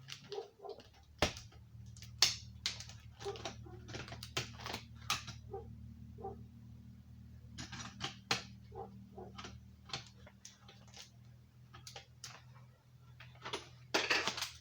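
Irregular plastic clicks and scrapes of a heat detector being pushed and twisted against its ceiling mounting base without seating, which he suspects is down to mounting screws set too tight. A steady low hum runs underneath.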